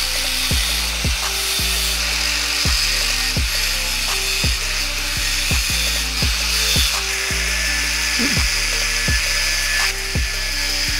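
Angle grinder with a thin cut-off disc cutting through an iron sheet clamped in a vise: a steady high-pitched grinding whine and hiss. Background music with a steady beat plays over it.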